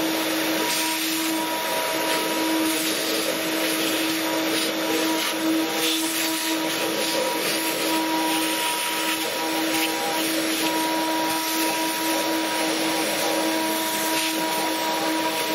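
6040 CNC router spindle running steadily with a whine, its small bit carving a wooden relief, over a steady rushing noise.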